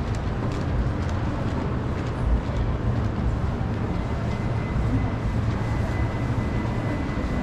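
Indoor shopping-mall ambience: a steady low rumble with a distant murmur of shoppers. A faint high tone comes in about halfway through.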